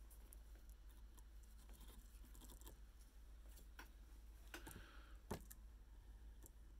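Near silence: room tone with a steady low hum, and a few faint small clicks and taps from handling fly-tying tools and materials by hand, the clearest three spread through the second half.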